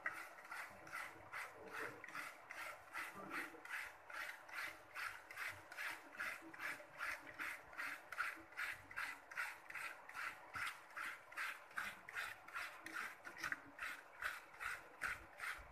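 A head of cabbage being shaved into shreds with a hand-held shredder: even rasping strokes, about three a second.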